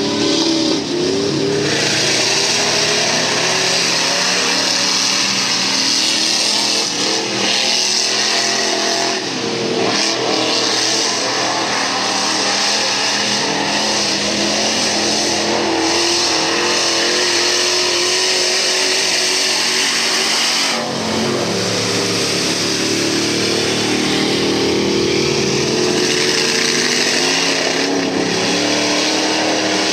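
Mud-racing pickup truck engines revving hard, the pitch rising and falling as the trucks run through a mud pit. The engine noise is continuous and loud, with a short dip about two-thirds of the way through.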